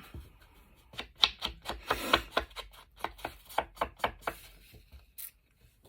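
Quick, repeated taps of an ink pad dabbed along paper edges, about four or five a second, stopping about four and a half seconds in.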